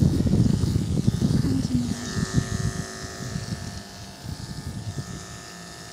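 Andis two-speed electric dog clipper with a 3 3/4 FC blade running, clipping through fur. It is louder and rougher for the first two seconds or so, then settles into a quieter, steady hum.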